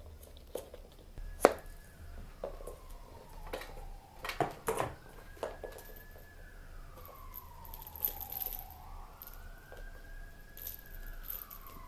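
Kittens batting a ping-pong ball and small toys about, giving scattered knocks and clicks, the loudest about a second and a half in and a quick run of them around four to five seconds. Behind them a faint siren-like wail rises and falls slowly, every three to four seconds.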